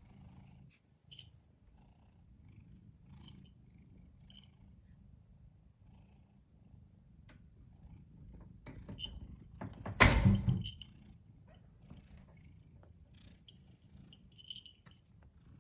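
A house cat purring steadily, close to the microphone. A loud, brief noise about ten seconds in, such as a bump against the microphone.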